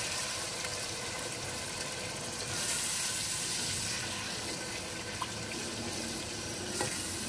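Keema masala of onions, spices, boiled mince and freshly added yogurt frying in oil in a steel pot while being stirred with a wooden spoon: a steady sizzling hiss that grows louder for a moment about two and a half seconds in. This is the bhuna stage, with the yogurt being fried into the masala.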